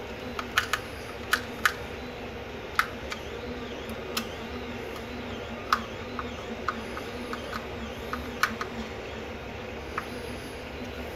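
Small screwdriver driving the screws of a Sonoff module's plastic cable-clamp cover: scattered sharp clicks and light ticks of the tool and plastic case, over a steady low background hum.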